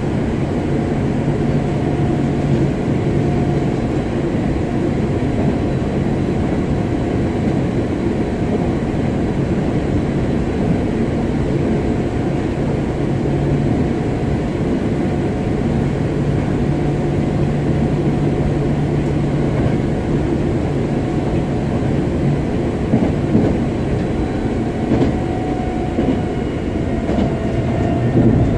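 Hankyu 7000 series electric commuter train running at speed, heard from inside the car: a steady rumble of wheels on the track with a low hum coming and going, and a few sharper knocks near the end.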